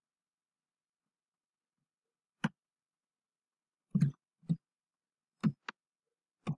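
A few isolated keyboard keystrokes, about six short clicks with dead silence between them, as text is typed into a code editor.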